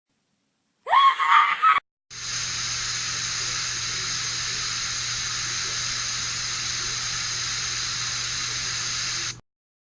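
A short loud cry-like sound rising in pitch, then a steady even hiss for about seven seconds that starts and stops abruptly.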